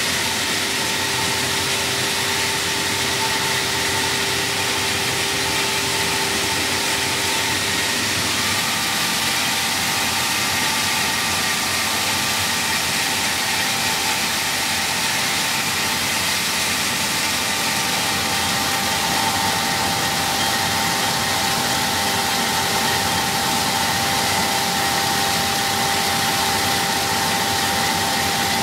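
Bean peeling and splitting machine running steadily: a constant mechanical drone with a few steady hums over it, one of which fades out about a third of the way in while a higher one comes in.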